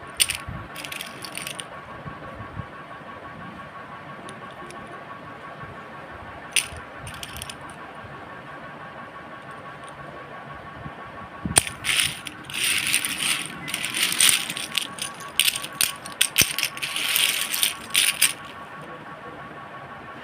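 Bursts of rattling clatter of small hard objects over a steady hum: briefly near the start, again about six and a half seconds in, then a longer busy stretch from about twelve to eighteen seconds.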